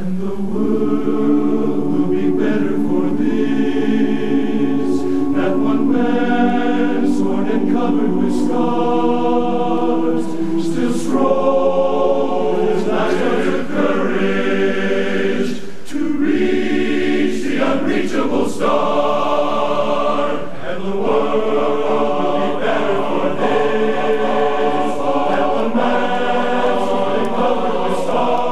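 Large men's barbershop chorus singing a cappella in close four-part harmony, holding full sustained chords, with short breaks between phrases.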